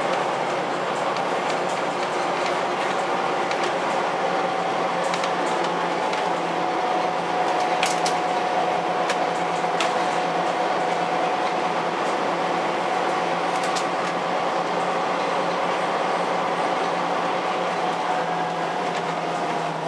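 Bus in motion heard from inside the passenger cabin: steady engine and road noise with a constant whine, and a few sharp rattles of the bodywork and fittings.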